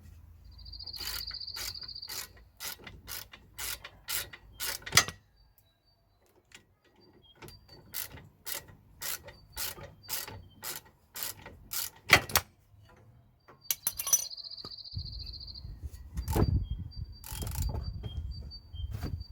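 Socket ratchet on the lower brake caliper bolt, clicking in repeated short strokes, with two brief runs of rapid clicking as the ratchet is swung quickly.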